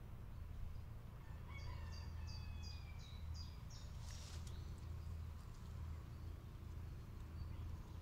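A small songbird singing a run of about six high, repeated notes, over a steady low rumble; a brief noisy rustle follows about four seconds in.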